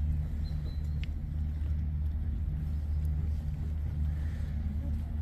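Cat purring close by, a low rumble that swells and fades evenly, about twice every second, with each breath.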